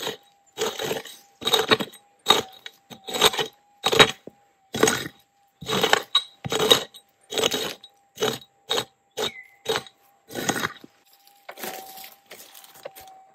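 Pick striking and scraping into the stony soil of a mullock heap, about two blows a second, stopping about ten seconds in. Under it runs the gold detector's steady threshold hum.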